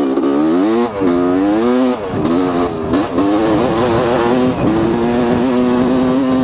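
1985 Honda CR250R's single-cylinder two-stroke engine under way, its pitch rising and falling several times with the throttle, then holding steady near the end. The engine has just been worked on and is running well.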